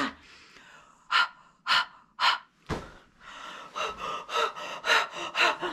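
A woman's breathy huffs and pants, the /h/ sound of letter H: a few spaced huffs, then a quicker run of panting from about three seconds in.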